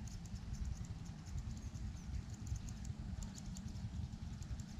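Wind rumbling on the microphone, with runs of rapid, high-pitched clicking scattered through it.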